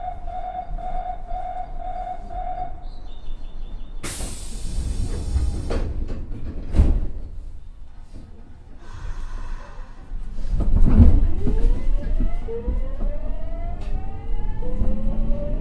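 Nagoya subway 3000-series train at departure: a pulsing electronic door-warning tone, a hiss of air as the doors close and a thump as they shut, then the train pulls away with its traction motors whining in several tones that rise steadily in pitch as it accelerates.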